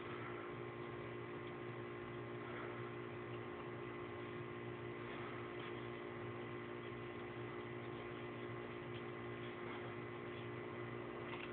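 A steady electrical hum with faint hiss and no distinct events: room tone.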